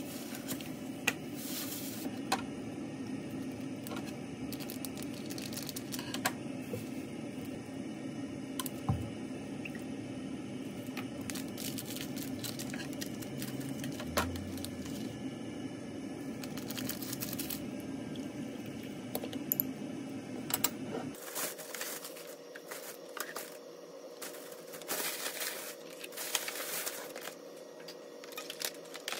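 Food-prep handling noises: sauce packets torn open and squeezed into a bowl, with scattered clicks and knocks on the counter over a steady low hum. About three quarters of the way through the hum stops suddenly, and plastic takeout containers rustle and click as they are handled.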